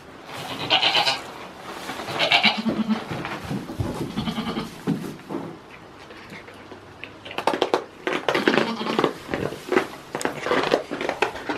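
Goats bleating, two loud bleats in the first few seconds, then a long stretch of close rustling and crackling in the hay straw.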